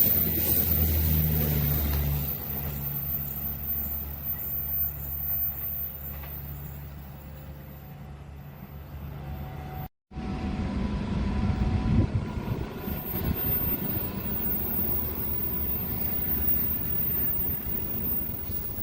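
Railway sound in two parts. First a steady low engine drone fades away over about ten seconds. After an abrupt cut comes a louder, noisy rumble of a train rolling past.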